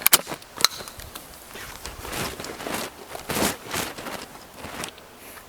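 Two sharp clicks in the first second, then a run of irregular scuffing footsteps.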